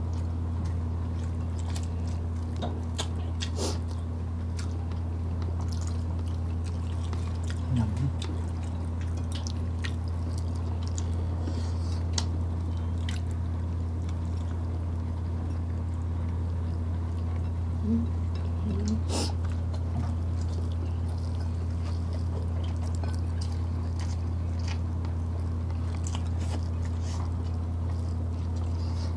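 Eating by hand: scattered wet clicks and smacks from chewing and from fingers pulling apart grilled chicken inasal and scooping rice. A steady low hum runs underneath. The sharpest click comes a little past the middle.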